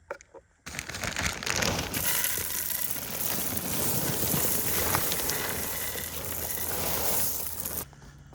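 Loose gravel pouring into a post hole around a wooden post: a continuous crunching, rattling rush that starts suddenly about a second in and stops suddenly near the end.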